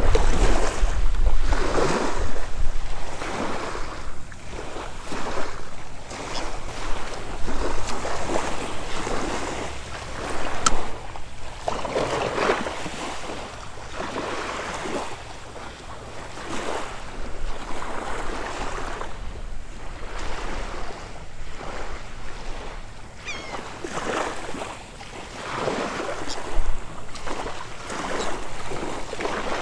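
Small waves lapping and washing up on a sandy, shelly shoreline, swelling and fading every couple of seconds, with wind buffeting the microphone.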